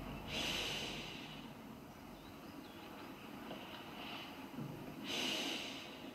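A person breathing out slowly twice, about five seconds apart, each breath a soft hiss lasting under a second.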